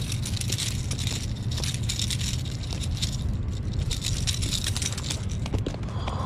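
Rapid clicking and rattling of a hard jerkbait's treble hooks, with scraping against the float tube's apron, as a barracuda is worked off the hook. It comes in two spells with a short lull about halfway, over a steady low rumble.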